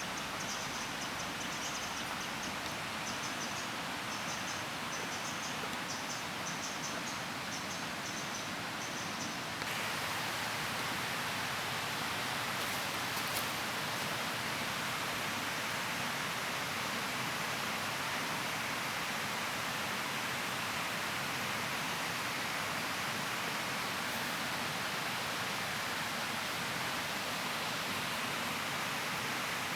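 Steady outdoor rushing noise, with short high chirps repeating for the first ten seconds. About ten seconds in it changes abruptly to a slightly louder, even rush.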